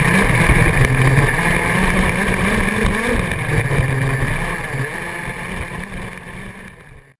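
Radio-controlled off-road buggy running over a dirt and grass track, its motor and drivetrain heard up close from a camera mounted on the car, with wind and tyre noise. The sound fades away toward the end.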